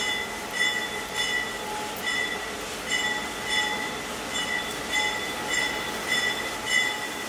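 A diesel locomotive's bell ringing at a steady pace, a little under two strikes a second, over the low rumble of a slow-moving freight train.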